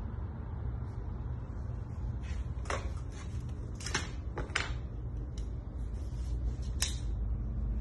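A few sharp knocks and clicks, about four in all and scattered, from tools and hands working at a tailor's cutting table. Under them runs a steady low hum.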